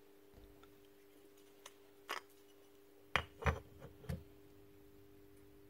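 Parts of a stripped-down Makita DBN600 cordless nail gun being handled: a few light clicks and knocks of plastic and metal, the loudest a cluster about three to four seconds in, as the piston and cylinder assembly with its O-rings is lifted out. A faint steady hum sits underneath.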